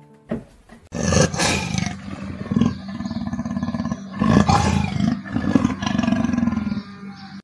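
Big cat growling and roaring in a run of loud, harsh surges, starting about a second in.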